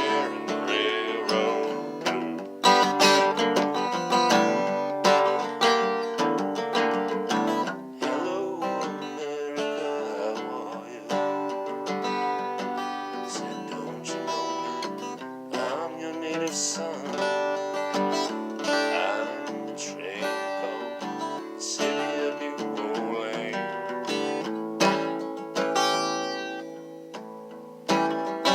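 Solo acoustic guitar playing, a steady run of plucked chords and single notes that softens briefly near the end before a fresh chord.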